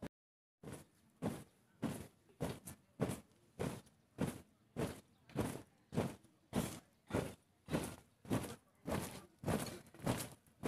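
A troop marching in step, their shoes striking the ground together in a steady beat, a little under two steps a second.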